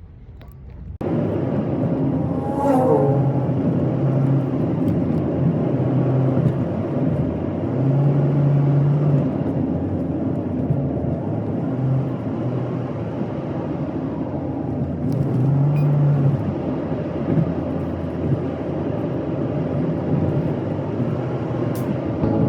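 Small car driving on the road: steady engine and tyre noise, with a low drone that swells and eases several times.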